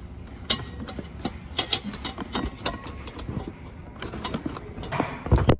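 Handling noise right at the phone's microphone: irregular plastic clicks, taps and knocks from hands working at opening a lidded ice cream cup, with a louder cluster of knocks near the end.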